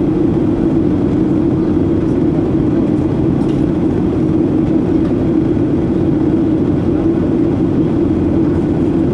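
Steady cabin drone of a Boeing 737-800 in descent, heard from a window seat by the wing: its CFM56-7B turbofan engines and the airflow over the fuselage make an unbroken rushing noise with a strong low hum.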